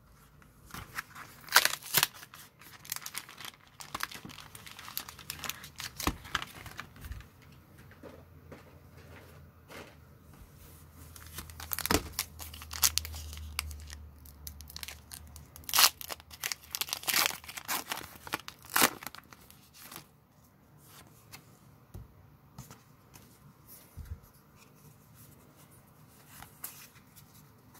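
A foil Pokémon TCG booster pack wrapper being crinkled and torn open by hand, in irregular crackles and rips. It goes much quieter after about twenty seconds.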